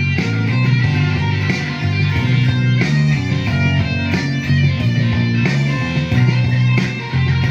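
Les Paul-style solid-body electric guitar playing heavy rock, loud and continuous, with a strong low end.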